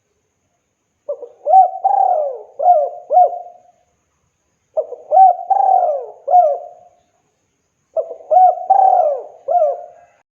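Spotted dove (tekukur) cooing: three phrases of four or five short, bending coo notes each, about three seconds apart, with silence between.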